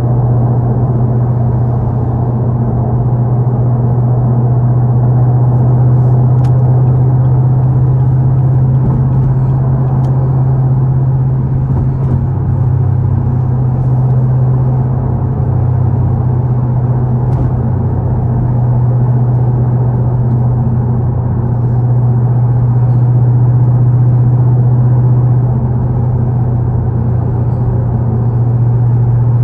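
A car engine droning steadily at cruising speed, with road noise, heard from inside the cabin.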